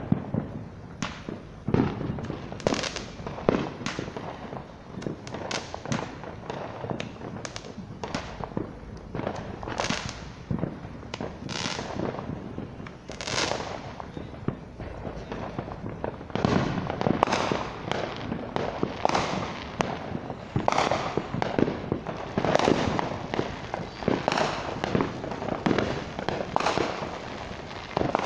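Fireworks going off: a continuous run of sharp, irregular bangs and pops, louder and busier from about halfway through.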